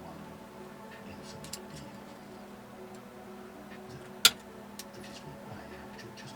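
Scattered small clicks and taps of parts and tools being handled on a workbench, with one sharp click about four seconds in, over a steady electrical hum.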